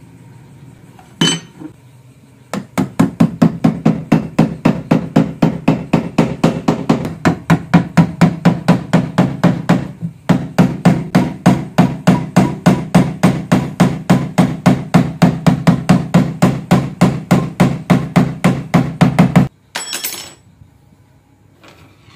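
Rapid hammer blows, about four a second, driving a thin metal tube through a wooden block, with a short break about halfway through. A single knock comes first, and a brief ringing metal clatter comes near the end.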